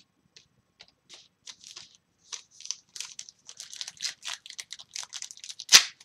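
A trading-card pack wrapper being torn open and crinkled by hand: short crackles, sparse at first and growing busier, with one loud sharp crack near the end.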